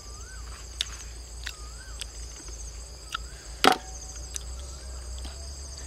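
A cleaver cutting cashew apples: several light sharp clicks and one louder chop about two-thirds of the way through, over steady high-pitched insect chirring.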